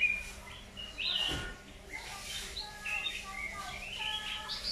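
Caged songbird, the kind sold as 'chang meratus', singing a fast, varied run of short chirps and whistled notes, some sliding up or down in pitch.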